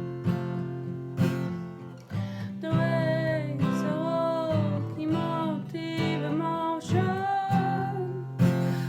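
Music: an acoustic guitar strumming chords. About two and a half seconds in, a wavering melody line joins over the guitar.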